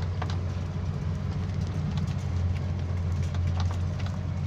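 Truck engine running steadily, a low drone, with a few faint clicks above it.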